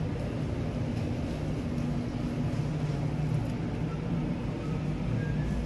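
Steady low rumble and hum of a supermarket aisle's background noise.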